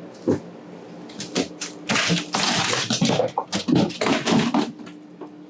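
Coach interior fittings being forcibly torn out: a single thump, then about three seconds of cracking, banging and clattering as panels are ripped loose.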